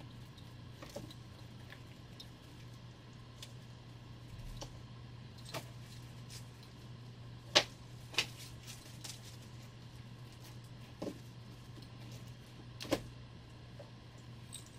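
Quiet room with a steady low hum and a scattering of short, light clicks and knocks, the sharpest about halfway through and again near the end.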